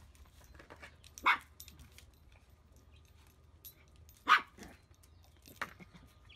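Chihuahua barking: two sharp barks about three seconds apart, the first about a second in, with a couple of fainter yaps after the second.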